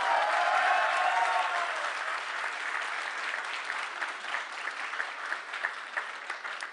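Audience applauding, loudest in the first second or two and slowly dying down.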